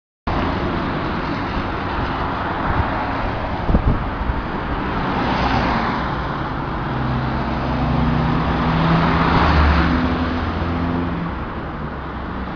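Road traffic: cars passing close by one after another, each a swelling rush of tyres and engine, with a few sharp knocks about four seconds in and a deeper engine hum between about seven and eleven seconds.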